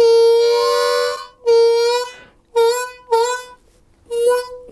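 Ten-hole diatonic blues harmonica played with cupped hands: a short blues lick of about five notes, mostly on the same pitch and separated by brief gaps, the first held longest. The lick shows an inflection, the 4 draw begun from a slight bend and released up to the note.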